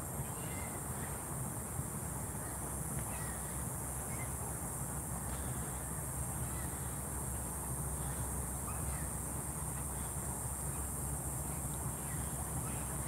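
Evening ambience: a steady high insect drone over a low steady rumble, with short bird calls scattered throughout.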